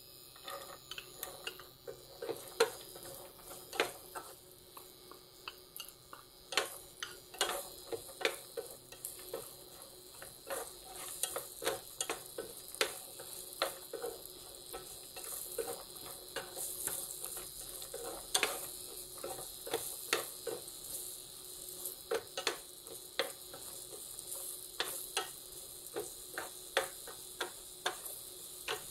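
Diced pumpkin frying in hot oil in a non-stick pan with a faint sizzle, stirred with a wooden spatula that knocks and scrapes against the pan in irregular clicks.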